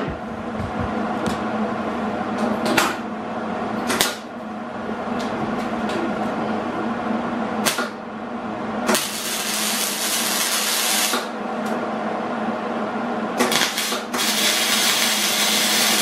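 Electric arc welder tack-welding a steel axle bearing bracket onto a go-kart frame. A few sharp knocks come first, then two hissing bursts of arc, each about two seconds long: one about nine seconds in, and one near the end after a brief spark-up.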